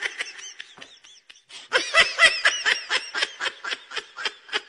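Laughter: a fast run of high-pitched ha-ha bursts, about five a second, faint at first and louder from about two seconds in.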